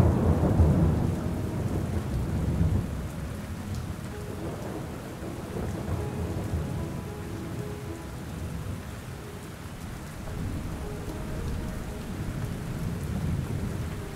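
Thunderstorm ambience: a low rumble of thunder over the first few seconds that dies away under steady rain.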